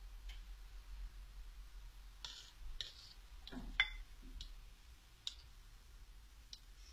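Faint, scattered clicks and light taps of kitchen utensils, about eight at irregular intervals, the sharpest a little under four seconds in.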